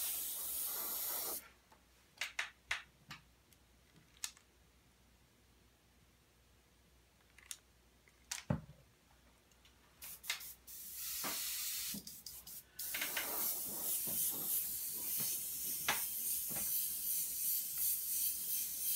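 Airbrush spraying paint with a steady hiss that cuts off about a second and a half in. After a quiet stretch with a few small clicks and a single knock, it comes back in short spurts, then sprays steadily through the last six seconds.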